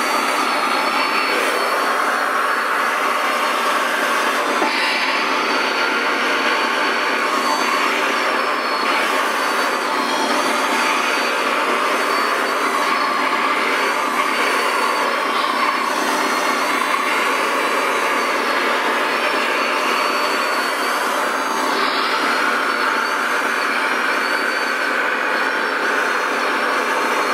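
Radio-controlled model wheel loader's electric motors and hydraulic pump whining as it drives and works its bucket, with high tones that waver as it changes speed over a steady whirring noise.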